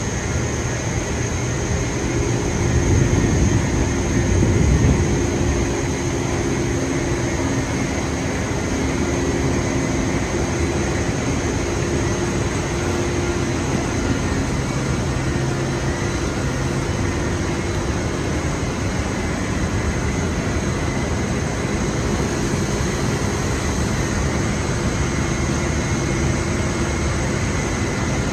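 Rock wool production line machinery running: a steady industrial din with constant hums and a high whine over broad noise, swelling briefly about three to five seconds in.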